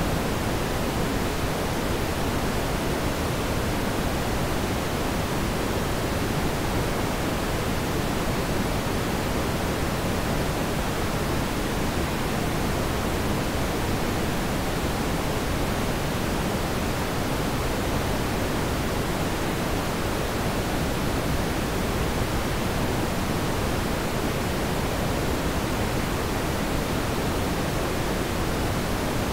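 Steady, unchanging hiss with most of its weight in the low and middle range, and no engine note, passing traffic or other separate events standing out.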